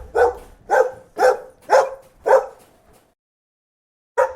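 A dog barking in a steady run of short barks, about two a second, then pausing for about a second and a half before one more bark near the end.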